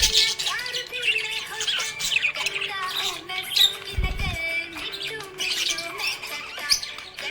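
Budgies chirping and squawking busily over background music, with a short low thud about four seconds in.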